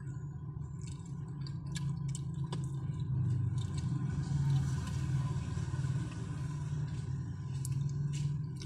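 Steady low rumble with a swell of hiss through the middle, under scattered light clicks and taps.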